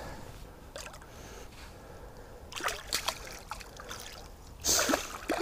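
Water splashing and sloshing around a pike held in a landing net in the shallows, a few short splashes with the loudest near the end. The fish is being rested in the net to recover before release.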